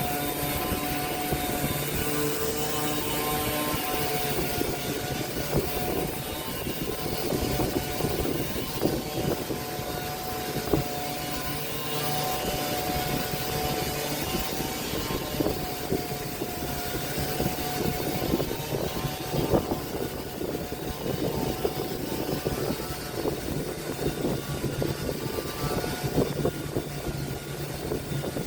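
Electric woodworking power tool running steadily on wood, its motor whine shifting slightly in pitch now and then as the load changes, with irregular small crackles from the cutting or abrading.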